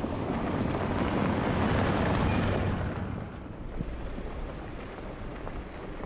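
Mercedes-Benz G-Wagen driving past on a rocky dirt track, engine and tyres on gravel rising to their loudest about two seconds in and fading after about three seconds.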